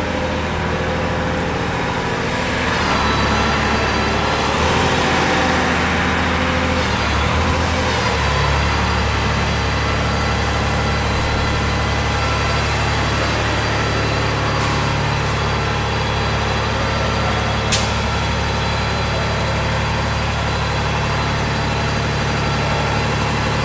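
Steady low machine drone, like a heavy engine idling, with a shift in its low note about 8 seconds in. One sharp click comes about 18 seconds in.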